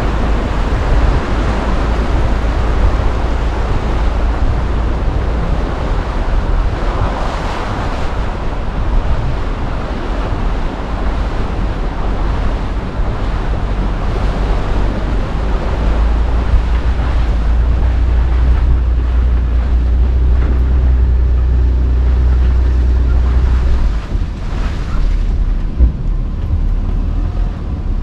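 Toyota Land Cruiser FZJ80 driving off-road: its 4.5-litre inline-six engine running low under a loud, steady rush of noise. A deep rumble drops away about 24 seconds in.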